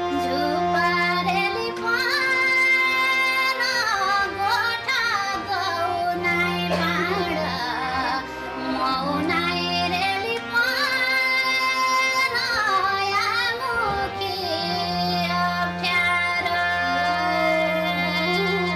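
A female voice sings a Nepali Deuda folk song, holding long high notes and bending them with wavering ornaments. A steady low instrumental drone plays underneath, dropping out for a few seconds at a time.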